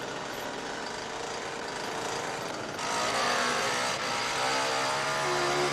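Chainsaw engine running: a noisy hiss at first, then from about three seconds in a steady buzzing engine note that grows stronger.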